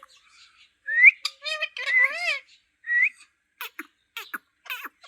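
Green talking parrot whistling: a short rising whistle about a second in and another about three seconds in, with warbling chatter between them and a run of quick clicks and squeaks near the end.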